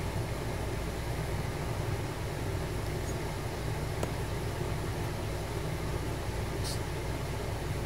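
Steady low mechanical hum of background noise, with a faint tick about four seconds in and a brief light rustle near the end.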